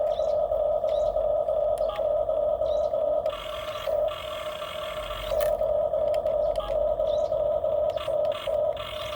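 Small electric motors and gearboxes of radio-controlled toy construction models whining steadily. The whine drops to a quieter, higher pitch for a second or so a few times as the load or throttle changes.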